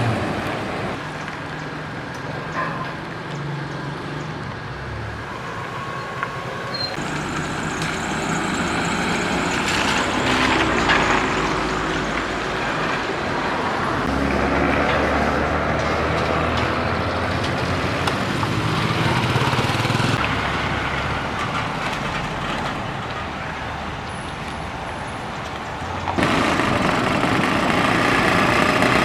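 Street traffic: cars and trucks passing with engines running, the level rising and falling as they go by and jumping up suddenly near the end.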